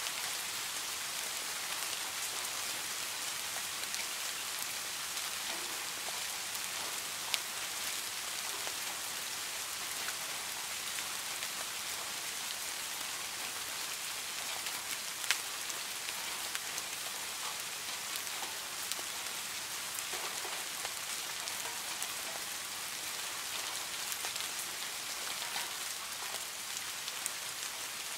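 Steady rain falling on a garden pond: an even hiss of drops on the water and surrounding surfaces, with a few louder single drops, about 7 and 15 seconds in.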